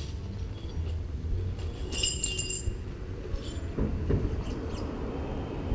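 Metal wrenches clinking together as they are handled, with one bright ringing clink about two seconds in and a smaller one shortly after, over a steady low rumble.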